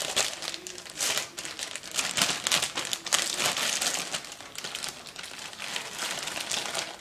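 Crinkly packaging rustling and crumpling as it is handled, in irregular bursts.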